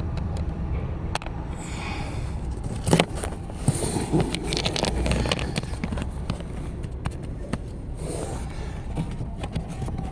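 Handling noises from work on the car's cabin filter housing: scattered clicks and knocks with rustling and scraping, over a steady low rumble.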